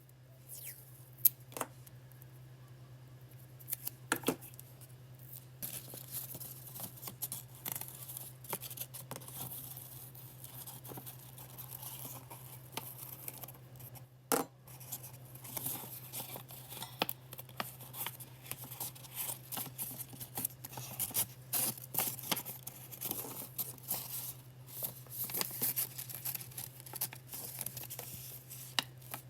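Scissors cutting: a long run of small irregular snips and rustles, with a few sharper clicks, over a steady low hum.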